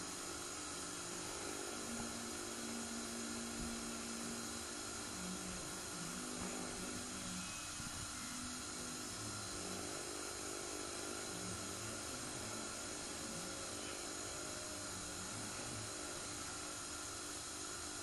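Samsung WW80J5555FWEU front-loading washing machine running on a Delicates 40°C wash: a steady whirring with faint high tones over it.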